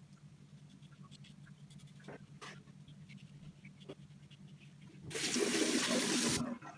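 Faint scrapes of a double-edge safety razor stroking through shaving lather, then a water tap runs for just over a second near the end.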